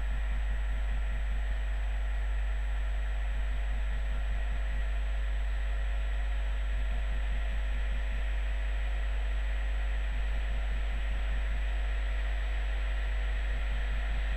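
Electric locomotive drawing a passenger train slowly into a station platform: a steady low hum and drone with a faint uneven pulsing, and no sharp sounds.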